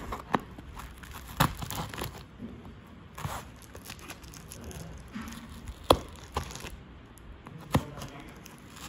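Plastic packing tape and polythene wrap on a cardboard box being torn open, a crinkling, tearing rustle broken by several sharp clicks and snaps.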